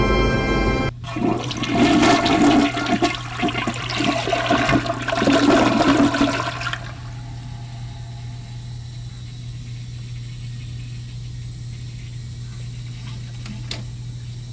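A toilet flushing: a loud, gurgling rush of water for about six seconds, then dying down to a low steady hiss. One sharp click comes near the end.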